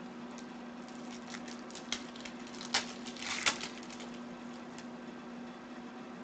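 Foil wrapper of a basketball trading-card pack crinkling and tearing open, with scattered crackles that are densest and loudest about three seconds in.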